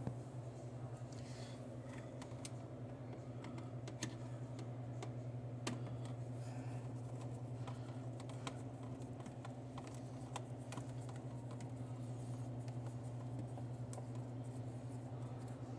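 Scattered light clicks and taps of screws, small metal parts and a hand tool being handled while a motor and gearbox assembly is refitted, over a steady low hum.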